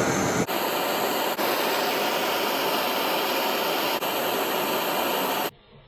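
A steady hiss of rushing air from a running machine, which cuts off suddenly near the end.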